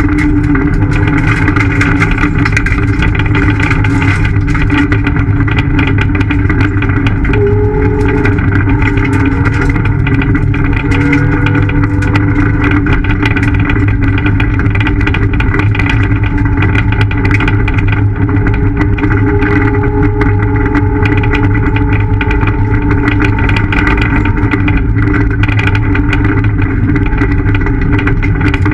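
Ford Fiesta ST rally car heard from inside the cabin at speed: the engine runs loud and fairly steady, with small rises and falls in pitch, over a constant patter of sharp ticks.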